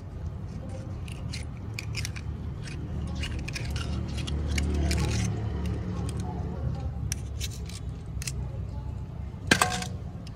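A small knife prying open and scraping fresh oysters: a run of sharp clicks and scrapes of steel on shell, with shell chips dropping into a metal basin. One loud click comes near the end, over a low steady rumble.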